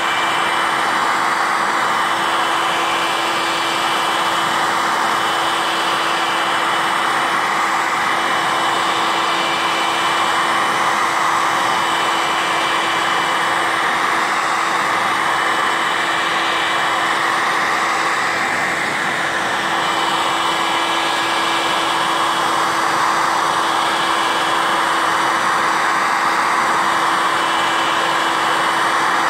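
Electric heat gun running steadily, its fan blowing with a constant hum.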